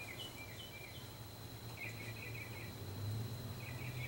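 Faint outdoor background: small birds chirping in short, repeated high notes, with a couple of quick trills, over a steady low hum.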